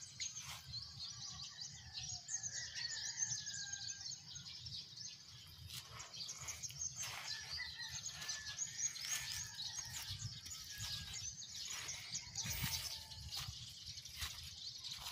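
Many small birds chirping and twittering together in a dense chorus of quick high calls, with a few longer, lower calls in the first few seconds. A low steady rumble and scattered soft knocks run underneath.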